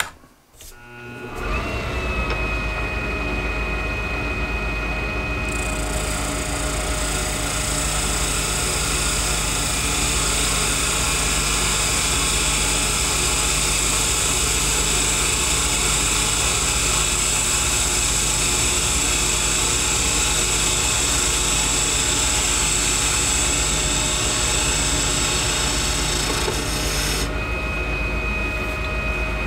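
Lathe motor starting about a second in and running steadily with a hum and a high steady tone. From about five seconds in until near the end, a turning chisel cuts the spinning acrylic duck-call blank with a steady hissing scrape; then only the motor runs.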